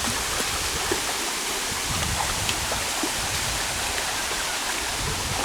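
Steady rushing of water from a small waterfall and creek flowing over rock, with a few faint clicks.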